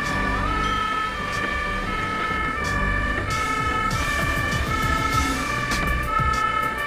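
Fire engine's two-tone siren, switching back and forth between two notes about every half second, heard from inside the cab over the truck's engine running.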